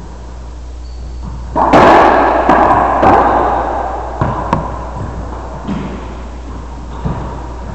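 A racquetball rally: the ball cracking off rackets and the court walls, several sharp hits with the loudest about a second and a half in, each ringing out in the echo of the enclosed court.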